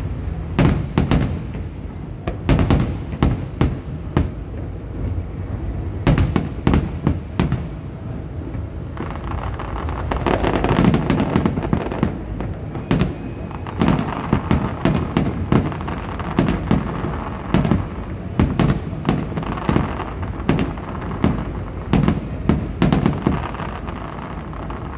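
Aerial fireworks shells bursting in quick succession: many sharp bangs, some close together in pairs and clusters, with a denser run of overlapping bursts about nine to twelve seconds in.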